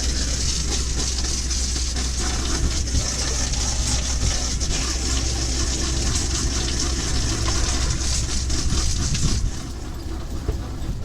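Steady rushing noise with a low rumble, of wind and sea on a fishing boat's open deck. The upper hiss drops off abruptly near the end.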